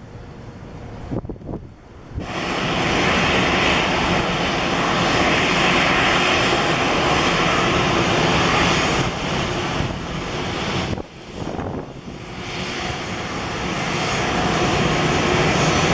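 Jet engines of an Airbus A320-family airliner running as it taxis close by: a loud, steady rushing roar. It jumps from fainter runway noise to full loudness about two seconds in, and dips briefly around eleven seconds.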